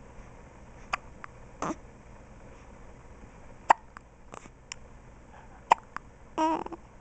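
Newborn baby hiccuping: three sharp hiccups about two seconds apart, with a few fainter clicks between them. A short voiced sound, the loudest lasting thing here, comes near the end.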